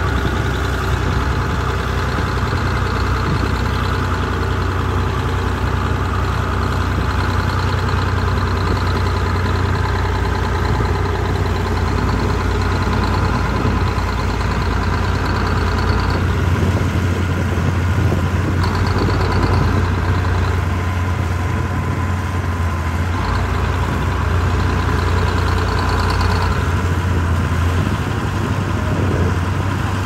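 Small Komatsu crawler bulldozer's diesel engine running steadily under load as the dozer pushes wet soil with its blade, the engine note shifting a little several times.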